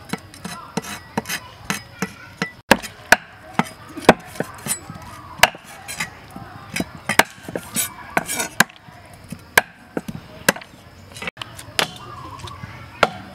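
Cleaver chopping raw frogs on a wooden chopping block: sharp, irregular strikes, roughly one or two a second.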